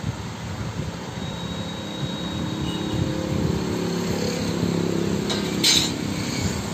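Steady mechanical rumble and hiss that grows a little louder through the middle, with a brief sharp noise near the end.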